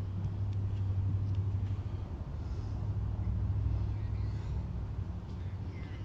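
Steady low machine hum in a workshop, with faint light ticks over it.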